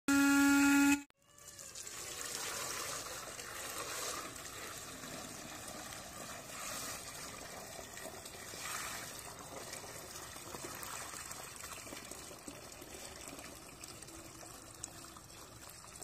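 A two-wheeler's electric disc horn sounds one steady blare for about a second while sitting in water, throwing up spray. After a short gap, water poured from a bucket splashes steadily into a plastic tub.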